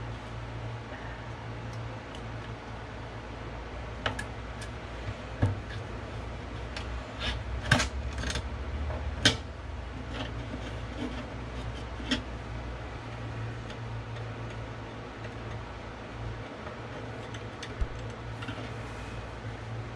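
A steady low hum with scattered sharp clicks and knocks, the loudest about eight and nine seconds in.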